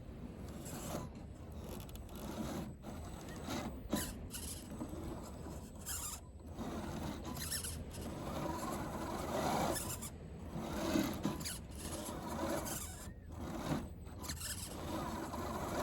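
Electric motor and gearbox of a 1/10-scale RC crawler whining in uneven spurts, swelling and fading every second or two as the throttle is worked.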